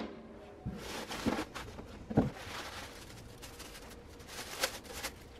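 Faint rustling and crinkling of plastic packaging and bubble wrap being handled, with three light knocks in the first two seconds or so.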